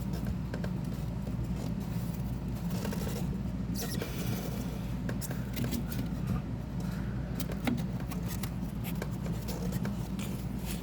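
Hands working an engine-bay rubber hose and its clamp back onto a fitting: scattered small clicks, taps and light scrapes over a steady low hum.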